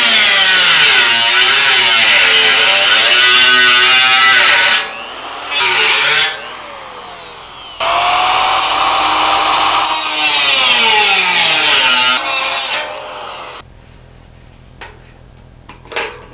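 Angle grinder with a cut-off wheel cutting through the steel wall of a drum, throwing sparks. It runs in three spells: about five seconds, a short burst, then about five seconds more, its whine sliding up and down as the wheel bites. After it winds down, a few sharp clicks near the end from a ratchet strap being tightened round the drum.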